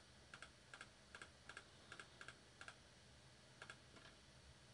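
Faint computer mouse clicks, each a quick press-and-release pair, coming about two to three a second, with a short pause about two-thirds of the way in.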